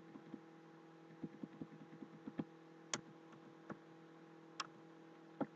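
Faint, irregular clicking of a computer keyboard and mouse in use, about fifteen clicks with a quick cluster near the end, over a steady electrical hum.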